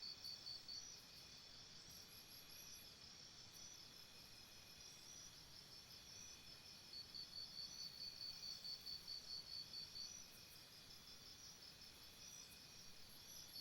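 Faint jungle insect chorus: a high chirp pulsing about four times a second, over steady high-pitched insect trills. The chirping stops about a second in, returns for about three seconds from around seven seconds in, and starts again near the end.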